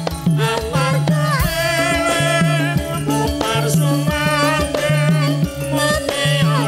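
Live campursari music: a woman singing with a wavering vibrato into a microphone over an electronic keyboard and kendang hand drums, with a steady repeating bass line and regular drum strokes.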